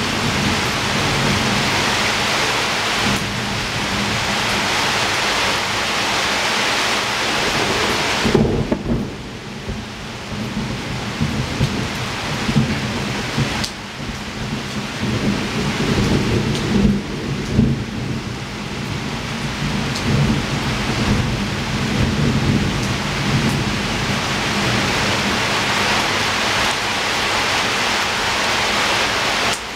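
Heavy rain pouring outside a window, a dense steady hiss over a low rumble. The hiss thins suddenly about eight seconds in, then slowly builds back up.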